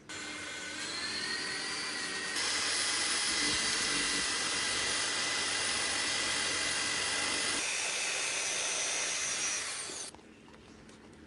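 Electric drill spinning a homemade cotton candy spinner, a steady whine. It speeds up slightly over the first two seconds, steps up to a higher speed a couple of seconds in, changes speed again later, and stops about ten seconds in.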